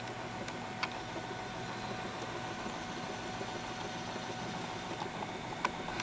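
Steady electrical hum and whir of a 1986 Heileman's Old Style motion sign running, its small motor turning the animated waterfall cylinder behind the lit panel. A faint click about a second in and another near the end.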